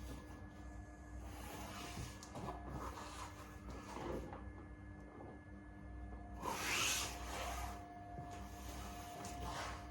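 Rubbing and scraping handling noises in several spells, the loudest about two thirds of the way in, typical of hardboard sheets being shifted and slid against each other, over a steady electrical hum.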